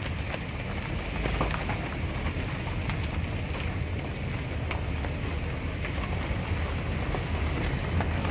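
Car rolling slowly with its window down: a steady low rumble from the car and its tyres, with wind buffeting the microphone.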